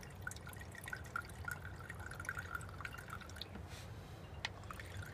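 Alcohol fuel trickling in a thin stream from a squeeze bottle's spout into an aluminium soda-can stove. It is a faint, steady trickle with a slightly wavering pitch and small ticks, and one sharper click near the end.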